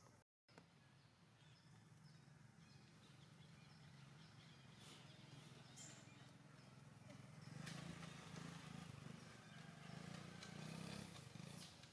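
Quiet outdoor background: a low steady hum that swells a little in the second half, with a few faint rustles.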